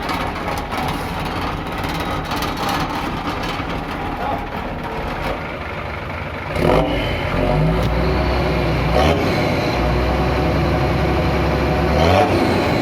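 Hino 500 truck's diesel engine running through an aftermarket growling racing exhaust, steady at first, then revved up about halfway through and held at higher revs with a deep low rumble.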